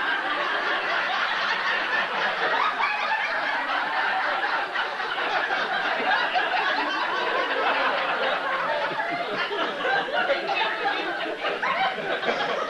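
A room full of people laughing and chuckling at once, many voices overlapping.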